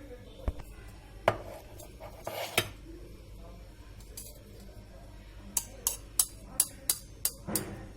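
Metal spoon clinking against a dish. There are a few scattered knocks, then a quick run of about seven clinks near the end.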